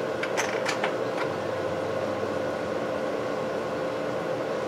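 A handful of light clicks in the first second or so as the tablet's metal-framed display assembly is handled, over a steady fan-like hum with one constant tone.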